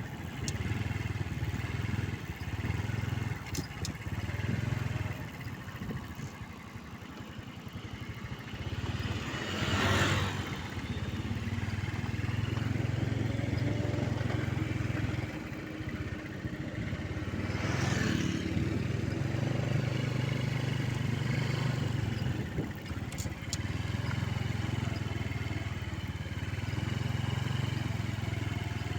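Mitsubishi Canter truck's diesel engine running unevenly, its low drone repeatedly dipping and stumbling before picking up again: the coughing of a rough-running engine. Two brief rushing swells pass over it, about ten and eighteen seconds in.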